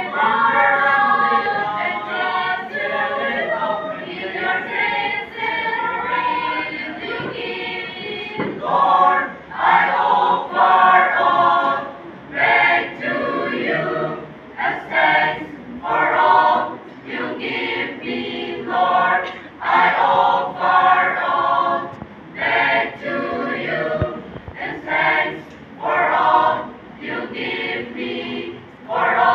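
Mixed choir of young women and men singing in parts. The first several seconds are smoothly held; from about nine seconds in the singing breaks into short, separated phrases with brief pauses between them.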